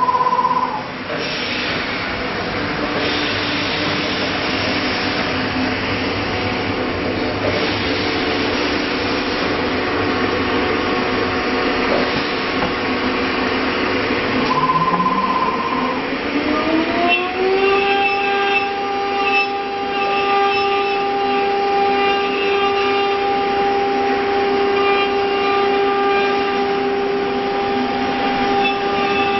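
CNC router spindle spinning up: a short beep about halfway, then a whine rising over about three seconds and holding steady at speed. Machine hum and noise run underneath, and there is another short beep at the very start.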